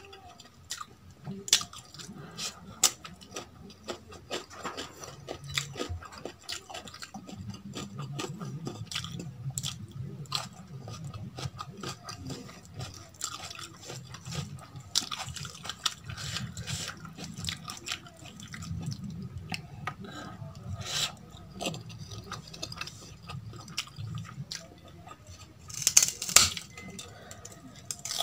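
Close-miked eating sounds: fingers squishing and mixing rice with rajma curry on a steel plate, with chewing and small mouth clicks. A louder noisy burst comes near the end.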